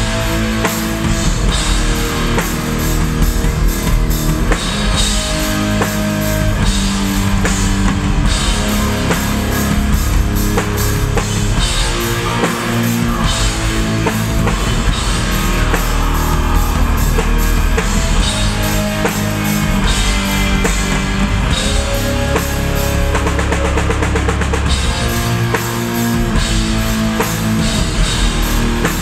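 Loud live heavy rock band playing: electric guitars, bass and a pounding drum kit with cymbals.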